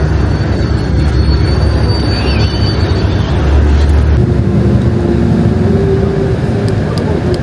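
Steady low rumble of a motor vehicle in motion, engine and road noise. About four seconds in it cuts abruptly to a different busy outdoor background with faint tones.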